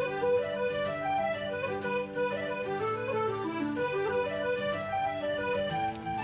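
Background music: an instrumental tune, a stepping melody over held low notes.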